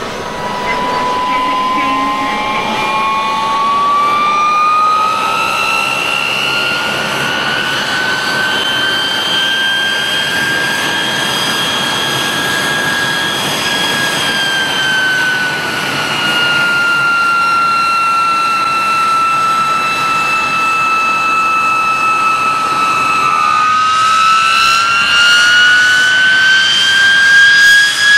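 Gas turbine whine from the sound-fitted KR Models GT3 model locomotive's speaker, with a steady hiss beneath. The whine climbs in pitch over the first several seconds, eases down a little about halfway, then climbs again near the end.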